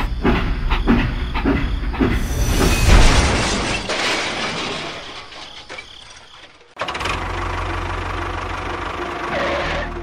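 Train chugging in a quick run of knocks over a low rumble, then a loud crash about three seconds in as the toy steam locomotive derails, fading away. A steady hissing hum starts suddenly near the seven-second mark.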